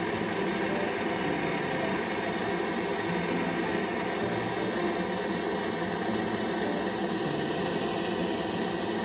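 Gas torch burning with a steady hiss, its flame held on a soldered copper water-line joint to melt the solder so the fitting can be pulled apart.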